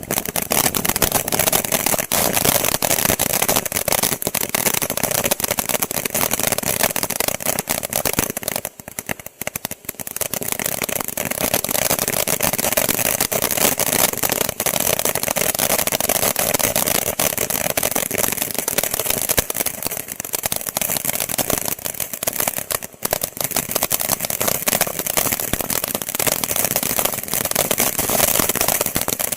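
WINDA Liberty Fountain ground firework spraying sparks: a steady loud hiss thick with rapid crackling, dropping briefly about nine seconds in before picking up again.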